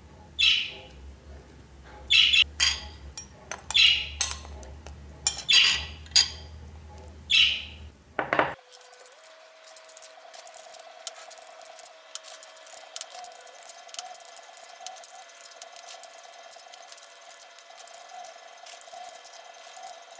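A metal spoon clinking and scraping against a porcelain bowl of coffee while ladyfingers are dipped, with about a dozen short, sharp, high-pitched clinks over the first eight seconds. After that only a faint steady hum remains.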